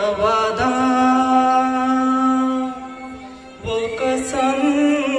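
Live singing amplified over a stage sound system: a voice holding long notes, easing off about three seconds in before the next phrase begins.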